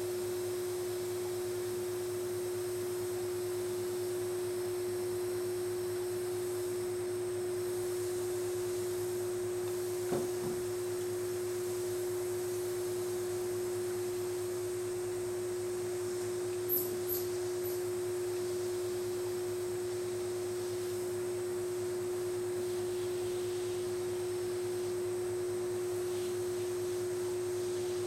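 A steady, unchanging pure tone throughout. About ten and again about seventeen seconds in come short double clicks, the press and release of a training clicker marking the horse's calm behaviour while he is misted.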